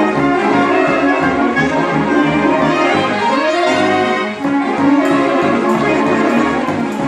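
Saxophone ensemble playing a fast march in full, dense chords, with a brief dip in loudness about four seconds in.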